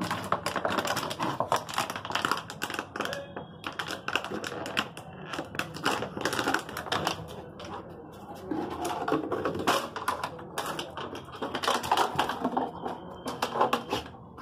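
A dog chewing a plastic water bottle: the plastic crackles and crunches in rapid, irregular clicks as it is bitten and crushed.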